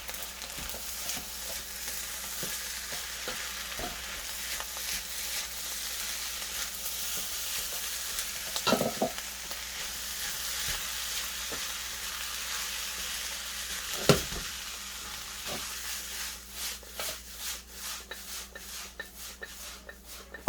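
Chicken fried rice sizzling and frying in a hot pan as it is stirred, with a utensil knocking and scraping against the pan now and then. The sharpest knock comes about two-thirds of the way through, and a quick run of scrapes and clicks follows near the end.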